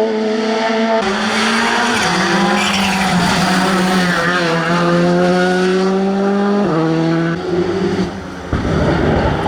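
Rally car engine at full throttle on a tarmac stage, pulling hard and shifting up twice with a drop in pitch each time. Near the end it lifts off briefly, with a short burst of tyre noise, before accelerating again.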